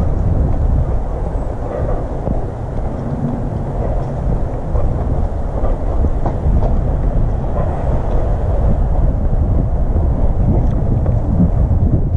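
Wind buffeting the microphone of a head-mounted GoPro Hero 5, a steady low rumble.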